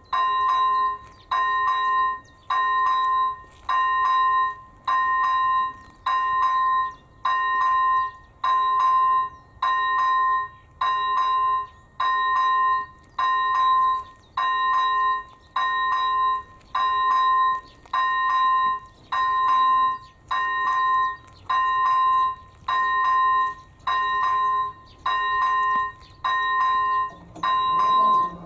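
AŽD E-bell ZV01 electronic level-crossing bell ringing about once a second, each stroke a bright ding. It is the warning that a train is approaching. Near the end a low hum joins in as the barriers start to come down.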